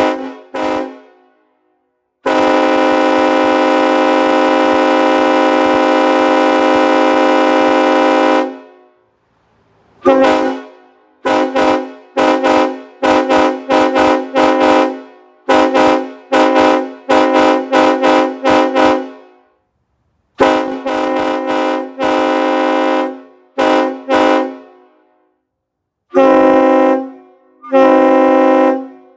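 Nathan AirChime K5HLA five-chime train horn blowing its chord. It gives two quick toots, then one long blast of about six seconds, then a rapid run of short toots, several shorter blasts and two final one-second blasts.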